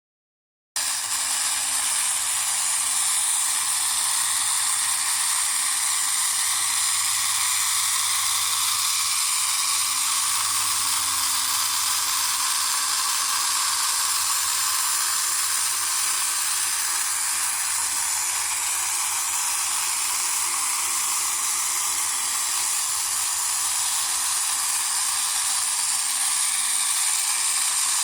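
Small electric motor and plastic gear train of a toy desktop robot vacuum running, a steady whirring hiss that starts just under a second in.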